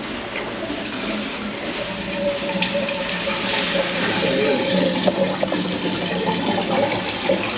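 Water rushing and gurgling as it drains out of a dishwasher, over a steady hum, with a few small clicks. The drain is flowing again after being plugged.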